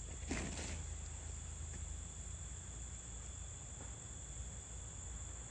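Steady high-pitched drone of insects chirring, with a brief soft rush of noise about half a second in.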